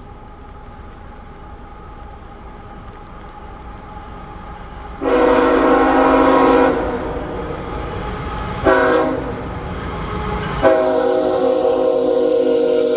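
Approaching diesel freight locomotive, a GE ET44AH, sounding its K5HL five-chime air horn for a grade crossing: a steady low rumble grows, then a long blast, a short one and another long blast, the standard crossing signal.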